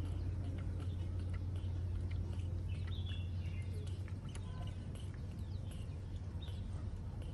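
A baby monkey sucking milk from a plastic bottle: soft scattered sucking clicks and a few faint high chirps, the clearest about three seconds in, over a steady low hum.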